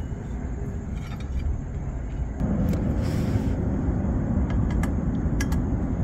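A few faint clicks and scrapes as a screwdriver turns a screw into a metal license plate bracket, over a steady low rumble that gets louder about two seconds in.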